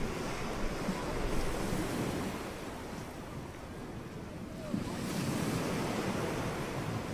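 Ocean surf washing on a shore, with wind: a steady rush of noise that swells about a second in and again about five seconds in.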